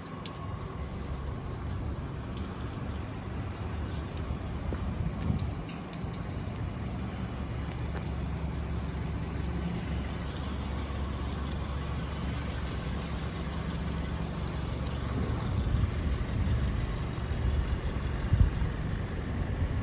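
City street ambience: a steady low traffic rumble with scattered faint clicks and knocks, and a few louder swells near the end.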